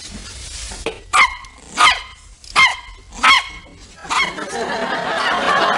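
A dog barking four times in quick succession, about one bark every two-thirds of a second. From about four seconds in, a studio audience laughs.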